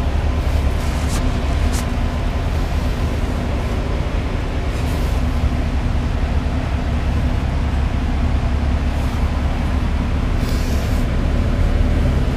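LiAZ city bus running, heard from inside the passenger cabin: a steady low engine and road rumble, with a few brief faint hisses.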